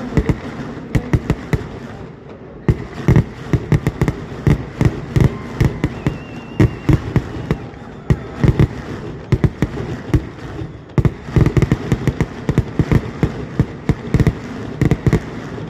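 A fireworks barrage: a dense, irregular string of loud explosions, several bangs a second, with no pause between them.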